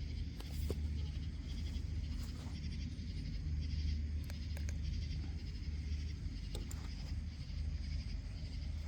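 Outdoor night ambience: a steady high pulsing chirp chorus over a low rumble, with a few faint clicks and knocks.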